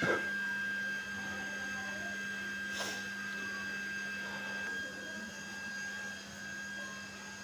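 A steady machine hum with a constant low tone and a thin high whine over it, and a single short click about three seconds in.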